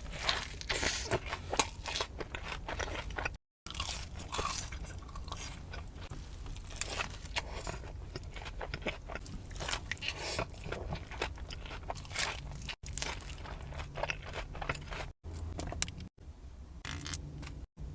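Close-up eating: many sharp crunches as crispy fried chicken tender breading is bitten and chewed, with a few abrupt brief silences between bites.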